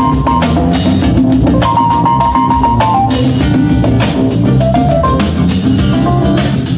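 Recorded band music with a drum kit keeping a steady beat, bass, and guitar or keyboard melody.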